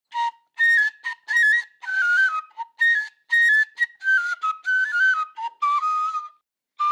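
A breathy flute playing a lively melody in short detached notes, stepping up and down and sliding into some of them.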